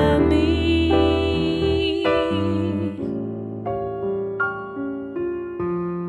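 Solo piano playing a slow, gentle passage: held chords, then from about three seconds in a run of single notes struck one after another.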